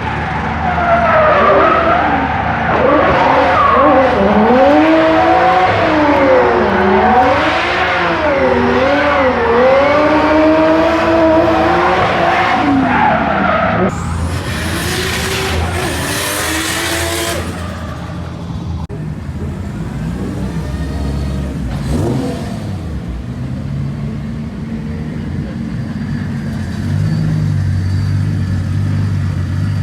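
Turbocharged Nissan Skyline R32 drifting: engine revs swinging up and down with tyres squealing for about the first thirteen seconds. Then comes a loud hiss lasting about three seconds, and after it the car fades to a lower, steadier engine rumble.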